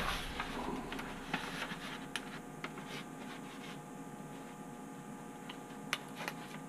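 Paper rustling as newspaper sheets are shifted, then scattered faint clicks and taps from handling and unfolding a small folding loupe (linen tester).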